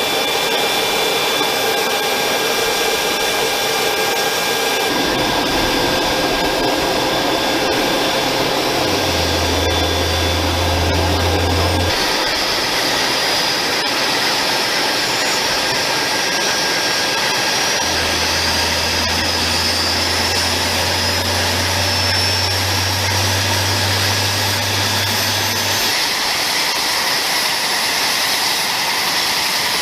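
AH-64 Apache helicopter running, a steady turbine whine over rotor and engine noise. A high whine rises slowly through the middle, and the sound shifts abruptly a few times.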